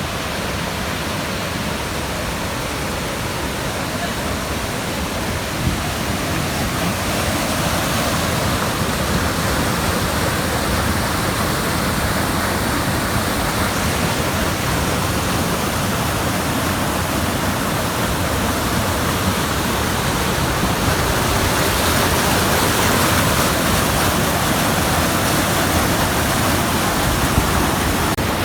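Bomburu Ella waterfall pouring: a steady, dense rush of falling water that swells slightly a few seconds in.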